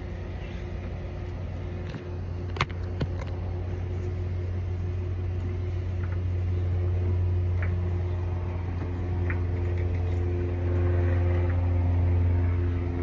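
A steady low mechanical hum that grows a little louder later on, with one sharp click about two and a half seconds in and a few lighter ticks after it.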